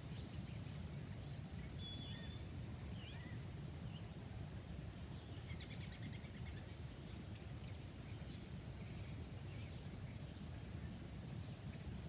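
Quiet rural outdoor ambience: a steady low background rumble, with a few faint bird whistles and chirps in the first few seconds and a scattered chirp or two later.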